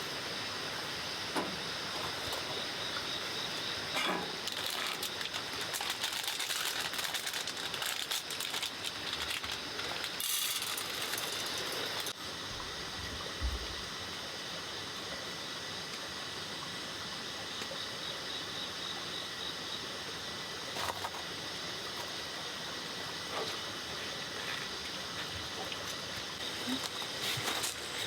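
Steady outdoor ambience: a continuous hiss with high insect chirring, broken by a few faint knocks.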